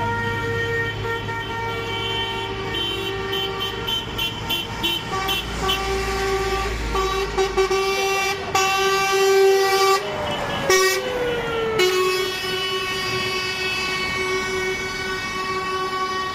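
Several vehicle horns, truck air horns among them, sounding together in long held blasts and shorter toots from a passing convoy of lorries. A louder blast comes near the middle, with one horn's pitch falling as it passes. A truck engine runs underneath in the first half.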